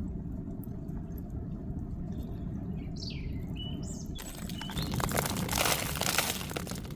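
Outdoor ambience with a steady low rumble. A bird chirps a few times around the middle, then a louder rustling noise with clicks takes over for the second half.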